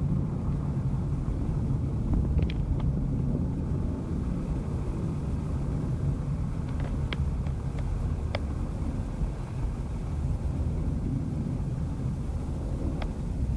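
Loaded truck's diesel engine running at idle, a steady low rumble, with a few short sharp knocks or clicks now and then.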